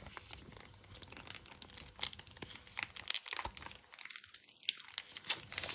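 Irregular crinkling and crackling with light clicks as BBQ sauce is spread over crispy oven-baked chicken wings.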